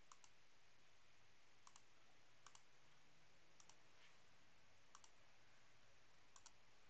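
Faint computer mouse clicks, mostly quick press-and-release pairs, about six times over a low steady background hiss.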